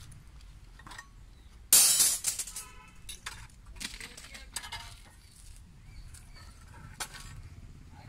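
Steel reinforcing bar clanking hard against metal a little under two seconds in and ringing briefly as it dies away, with a few lighter metallic clinks later, as rebar is worked with a hand bar-bending key on a wooden jig.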